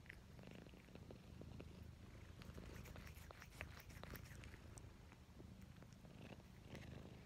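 Domestic cat purring steadily and quietly, close to the microphone, with a scatter of faint clicks in the middle as it noses at an ice cream bar.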